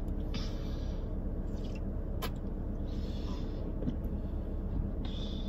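Steady low rumble with a faint hum in a car's cabin. A child sips from a drink can a few times, soft and short, with a small click about two seconds in.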